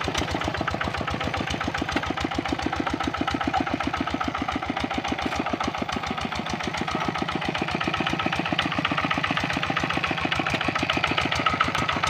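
Kubota RD65 single-cylinder diesel on a hand tractor running steadily, with a fast, even firing beat; it eases slightly in loudness near the middle and picks up again.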